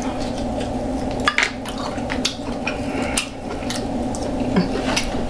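Eating sounds of curry-sauced king crab and shellfish being pulled apart by hand and chewed: irregular sharp clicks and wet, saucy squishing, over a steady low hum.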